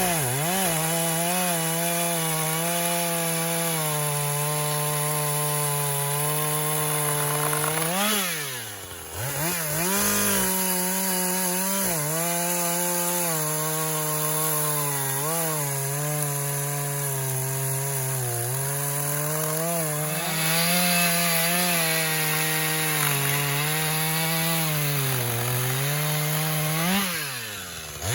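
A two-stroke chainsaw, the backup 440, running at high revs while cutting through a dead oak trunk. The engine note wavers under load. It drops briefly toward idle twice, about eight seconds in and again near the end, each time revving back up.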